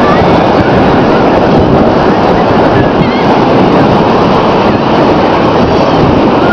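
Loud, steady roar of wind buffeting the microphone, mixed with the wash of breaking surf.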